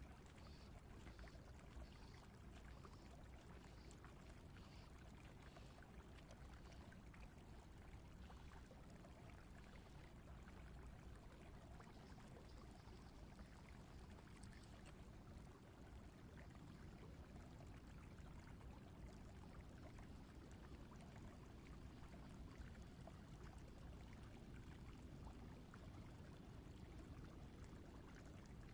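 Faint, steady sound of running river water. For the first several seconds a faint high ticking comes about twice a second.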